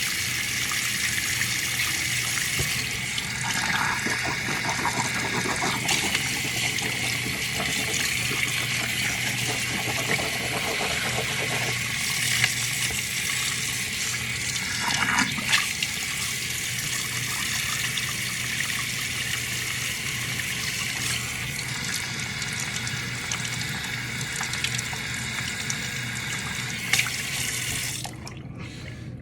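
Water running steadily from a tap, with a few light knocks; it shuts off about a second before the end.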